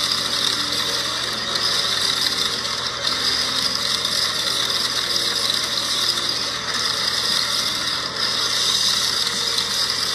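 Plastic gear mechanism of a Cars Monster Truck Mater wrestling-ring toy playset whirring as its spinning ring disc turns, with diecast toy cars rattling and scraping across the ring. The steady, continuous ratcheting rattle does not let up.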